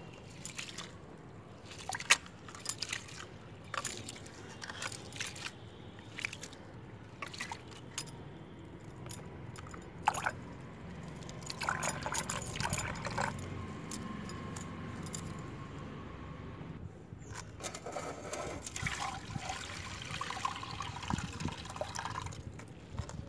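Hands swishing and rubbing split black gram in a metal pot of water, with repeated small splashes as the husks are washed loose. Later the cloudy wash water is poured off, in two longer stretches of splashing.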